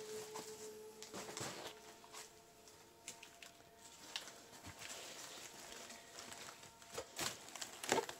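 Faint footsteps and shuffling over debris, with a few louder knocks and clicks near the end.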